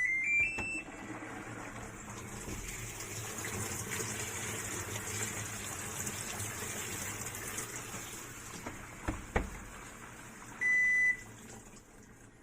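Washing machine giving a short rising run of beeps, then water running in steadily through its inlet valve as the tub fills. Two clicks come about nine seconds in, and one more beep near the end.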